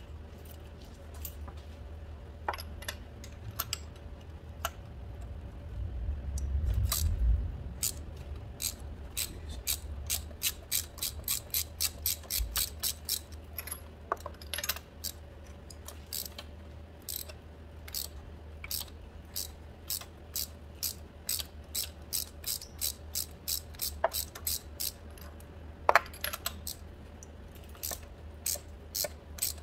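Hand ratchet clicking as a spark plug is turned with a long extension. The clicks are scattered at first, then settle into a steady run of about two a second. A short low rumble comes about six seconds in.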